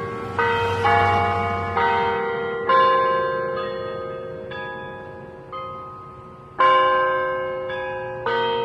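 Bells struck one after another, about one a second, playing a slow melody; each note rings and fades before the next.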